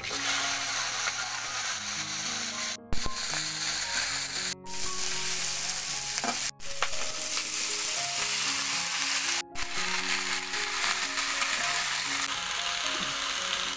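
Chopped cauliflower, potatoes and green chillies sizzling loudly in hot oil in a steel karai as they are tipped in and stirred with a metal spatula. The sizzle starts at once and cuts out abruptly for a moment four times.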